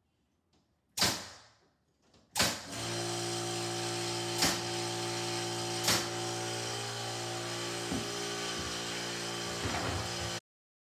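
Cordless finish nailer firing nails into door casing: two sharp shots a second and a half apart, then a steady machine hum with further sharper shots over it, cut off suddenly near the end.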